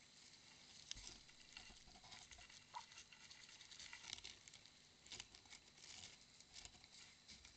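Faint, irregular scratching and clicking as a short-beaked echidna shifts about at the rim of a bird bath, its spines and claws brushing against the bowl and the camera.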